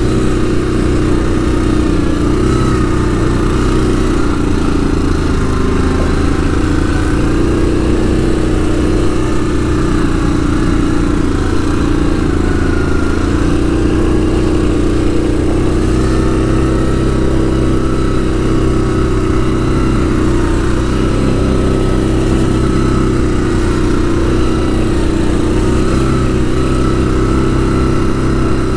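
ATV engine running steadily at trail-riding speed, its pitch rising and falling a little with the throttle.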